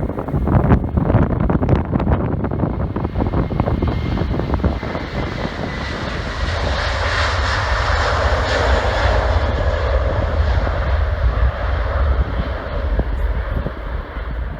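Jet engines of an Airbus A330 twinjet on takeoff, a loud roar with a deep rumble that swells to its peak about halfway through and then fades as the aircraft moves away. Wind buffets the microphone in the first few seconds.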